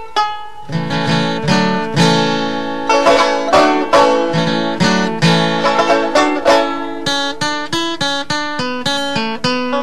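Background music: a tune of quick plucked-string notes, with lower notes joining under the melody about a second in.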